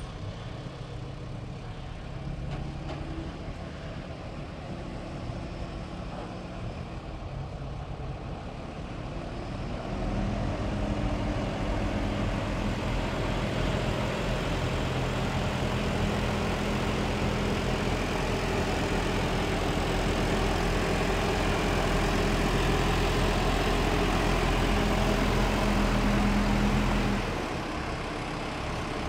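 Diesel engine of an HSM forestry machine running at idle, then held at higher revs for about seventeen seconds from roughly ten seconds in, before dropping back to a lower speed near the end.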